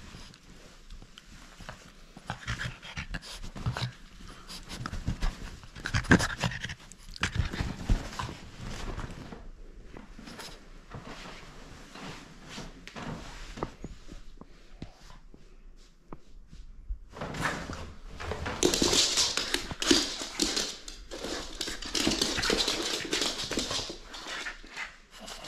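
French bulldog panting in quick, irregular breaths from the exertion of tug-of-war play with a rubber toy, louder in the last third.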